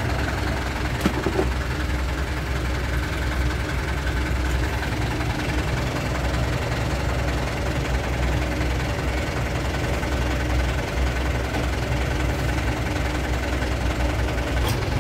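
Mitsubishi Colt Diesel FE 71 truck's 3.9-litre four-cylinder diesel engine idling steadily, with a brief click about a second in and another near the end.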